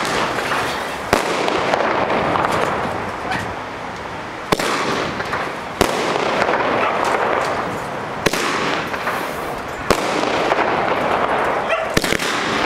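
Aerial fireworks fired close by, shot after shot: six sharp bangs about one to two and a half seconds apart as shells launch and burst, with a continuous crackling hiss between them.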